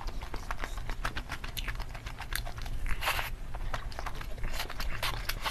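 Close-miked eating sounds of kimchi fried rice: wet chewing and small mouth clicks, with a short louder scrape or slurp about three seconds in.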